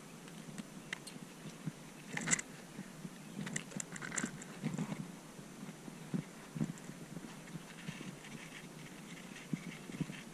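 Faint, irregular clicks, taps and rustles of handling noise from a handheld camera held close in grass, thickest around two to five seconds in.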